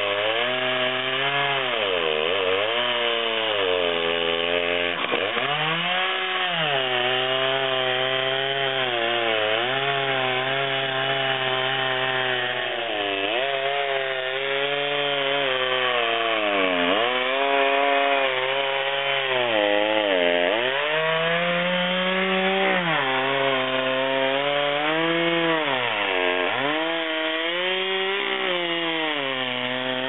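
Husqvarna 2100 XP two-stroke chainsaw with a 42-inch bar, run in an Alaskan chainsaw mill and ripping a wet balsam fir log lengthwise. The engine runs hard, and its pitch sags under load and recovers every few seconds as the new ripping chain labours through the big, wet log.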